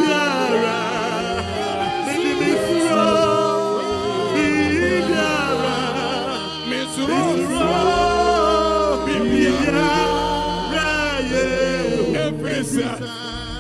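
Worship singing: several voices singing a gospel song with wavering, gliding pitch, over a steady low bass accompaniment that is strongest in the second half.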